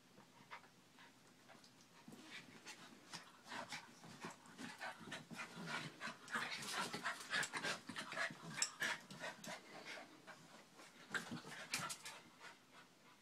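Two small dogs play-wrestling: quick panting breaths and scuffling, sparse at first, busiest and loudest in the middle, with a last flurry before dying down near the end.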